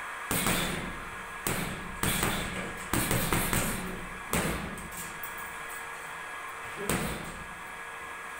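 Boxing gloves punching a hanging heavy punching bag: a series of sharp thuds, several in quick succession in the first half and one more near the end.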